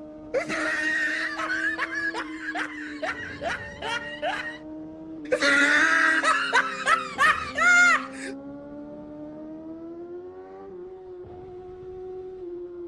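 Two bursts of laughter, the first about four seconds of rapid ha-ha pulses and the second a few seconds of rising and falling giggles. Under them runs a steady droning tone that rises slightly after the second burst.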